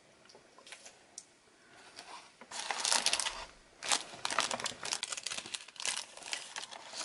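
Clear cellophane packet crinkling as hands pick it up and handle it. There are a few faint handling clicks at first, then from about two and a half seconds in, a run of quick, loud crackling rustles.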